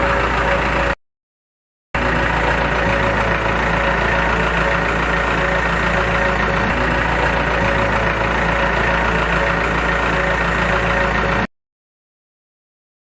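A motor running steadily with an even, engine-like drone, cut off abruptly twice for a second or more.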